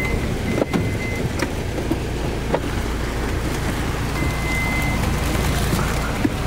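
Steady low rumble of a car's engine and road noise heard inside the cabin, with a few light knocks.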